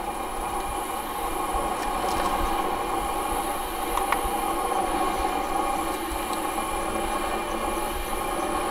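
Steady mechanical hum from the APSX Spyder desktop CNC mill while the tool is being touched off on a sheet of paper, with a small tick about four seconds in.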